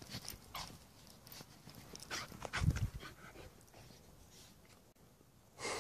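Bernese Mountain Dog rolling and wriggling on its back in dry sand: irregular scuffing and rustling of its body and fur against the sand, with a louder scuffle about halfway through.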